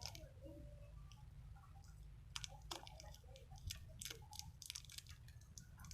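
Faint, irregular clicks and crackles of small handling noises over a low, steady hum.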